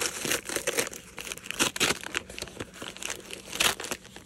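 Brown paper mailer being torn open and crumpled by hand: irregular crinkling and ripping paper, in several louder bursts.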